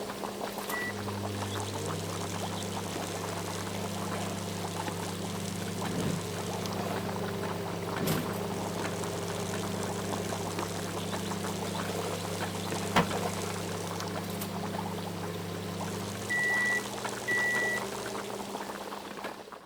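Microwave oven run: a single electronic beep, then a steady electrical hum for about fifteen seconds that stops abruptly and is followed by two beeps. A few sharp clicks and a steady hiss of liquid sound underneath.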